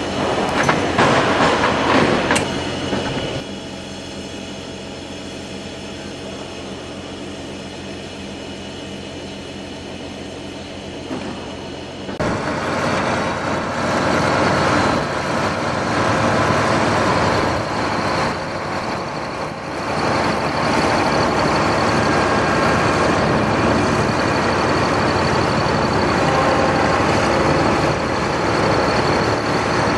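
A very wide sectional overhead door running on its operator: a rolling, rattling rumble over a steady motor hum. It drops to a quieter hum after about three seconds and grows louder again about twelve seconds in.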